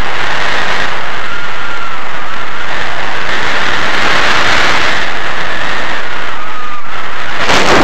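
Loud, steady wind buffeting a helmet-mounted camera's microphone during a parachute descent, with a faint wavering whistle above it and a stronger gust near the end.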